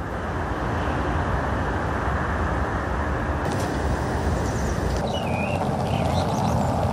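Steady road noise of a car driving, an even rushing sound heavy in the low end, with a brief high chirp about five seconds in.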